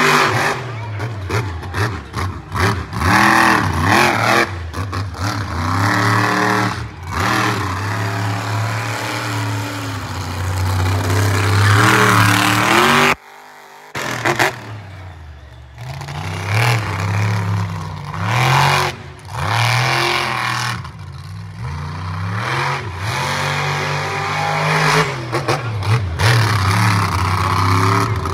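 Monster truck engine revving hard and dropping back again and again, its pitch climbing and falling with each blip of the throttle. The sound cuts out briefly about halfway through.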